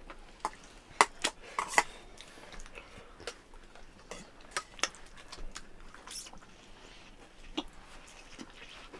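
Scattered light clinks and taps on stainless steel plates and bowls as rice is eaten by hand, with the sharpest clicks about one and two seconds in.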